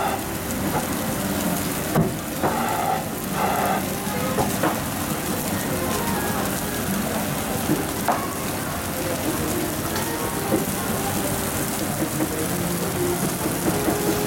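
Beef trimmings sizzling on the wire mesh of a charcoal grill, fat flaring up in open flames over the coals: a steady crackling hiss with scattered sharp pops.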